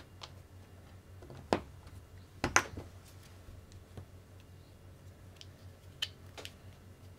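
Light clicks and taps of small RC car parts being handled: the front-wheel bearings and plastic wheels as the bearings are oiled for fitting. A handful of sharp clicks, the loudest a close pair about two and a half seconds in.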